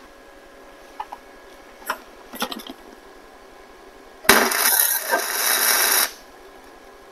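A few light metal clinks as the hook is set in place, then about four seconds in a welder strikes a tack weld: just under two seconds of loud crackling hiss that starts and stops abruptly. It is a tack joining a steel hook to the frame of a skid-steer pallet-fork attachment.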